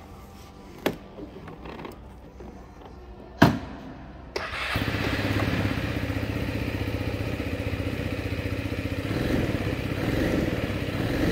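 Two clicks, the second one loud, then the Scomadi TL200 scooter's engine is started a little over four seconds in, catches at once and idles steadily with an even beat.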